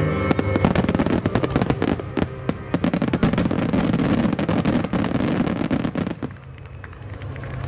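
Starmine fireworks finale: a dense barrage of aerial shells bursting and crackling in rapid succession, thinning out and dying away about six seconds in.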